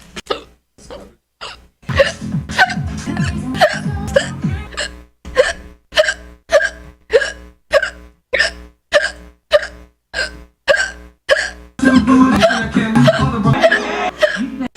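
A person hiccuping over and over, each hiccup a short, sharp squeak, at about two a second, over background music that comes in about two seconds in.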